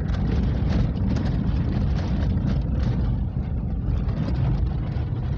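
Car driving over a rough, rain-soaked road: a steady low rumble of engine and tyres, with frequent knocks as the car bumps along.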